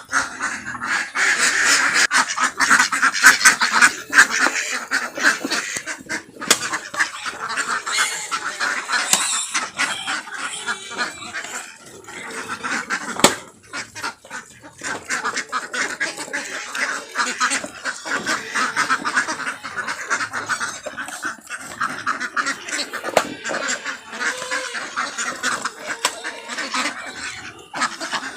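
A crowd of pigs squealing and grunting at once, a continuous noisy din with calls overlapping throughout, and a single sharp click about halfway through.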